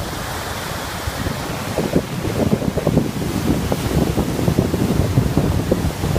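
Strong wind buffeting the microphone in irregular low rumbling gusts, over the wash of waves on a large lake.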